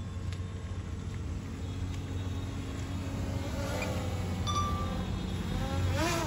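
Small DJI camera drone's propellers buzzing as it flies in low over the field, the pitch of the buzz rising and falling about three and a half seconds in and again near the end, over a steady low rumble.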